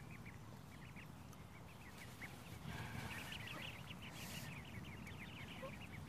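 A brood of ducklings peeping: many short, high calls, a few at first, then a rapid overlapping stream from about halfway through.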